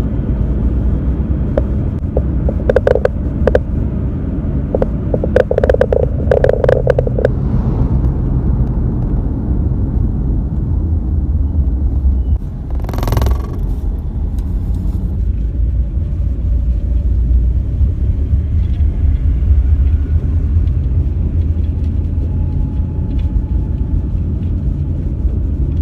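Steady low rumble of a car on the move, with a few short clattering sounds in the first seven seconds and a brief louder burst of noise about thirteen seconds in.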